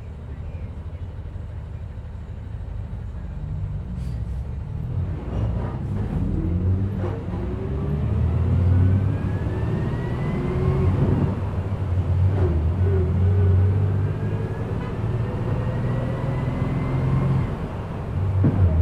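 City bus riding, heard from inside: steady engine rumble with a rising whine as it accelerates, twice, and a few rattling clicks early on from the body.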